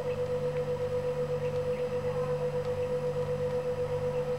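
A steady hum with a clear, steady high tone above it, pulsing slightly a few times a second.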